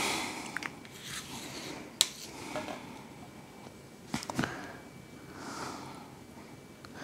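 Metal spoon scraping soft cheese out of a plastic tub into a glass bowl, with sharp clinks of the spoon about two seconds in and again around four seconds in.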